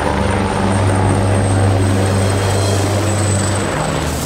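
Firefighting helicopter flying overhead: loud, steady rotor beat with a thin high turbine whine that drifts slightly lower and fades near the end.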